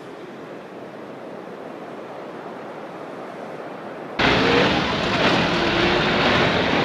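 Steady noise of city traffic, slowly growing louder, then an abrupt cut about four seconds in to a much louder stretch of street noise with a few faint short calls or voices in it.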